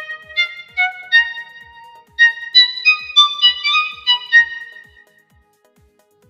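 Toxic III software synthesizer preset playing a short melodic phrase of about a dozen separate notes, each starting sharply and ringing briefly; the phrase stops about five seconds in.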